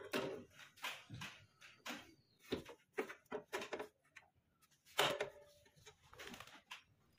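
Irregular light metal clanks and knocks as the gas water heater's sheet-metal frame is handled and set against the wall, about a dozen, the loudest about five seconds in.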